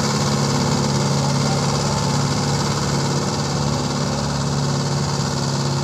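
Mahindra tractor's diesel engine running steadily under load, driving a rear rotary tiller through wet, muddy field soil.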